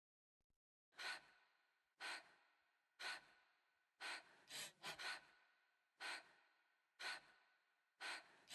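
A person gasping sharply, one short intake of breath roughly every second, with a quicker run of gasps near the middle. Dead silence lies between the gasps.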